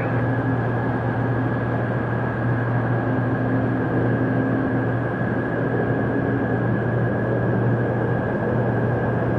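Twin jet engines of a British Airways Boeing 777 landing at low approach power: a steady rushing noise with a constant high whine over a low hum.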